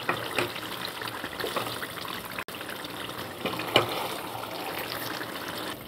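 Spiced mutton gravy simmering in a kadhai on the stove, bubbling and spitting: a steady hiss with scattered small pops.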